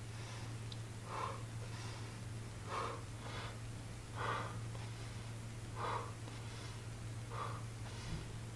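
A man breathing hard during dumbbell tricep kickbacks: short, forceful exhales through the mouth and nose about every one and a half seconds, in time with the reps. A steady low hum runs underneath.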